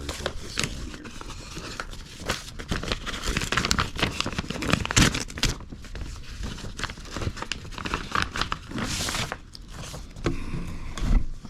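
Paper tearing and rustling as a sealed paper envelope is opened by hand and the papers inside are pulled out and handled: an irregular run of crinkles, rips and scrapes.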